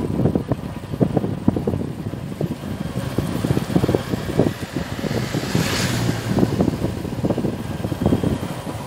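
Wind buffeting the microphone of a moving two-wheeler over road noise. A little past halfway an oncoming car passes with a brief whoosh.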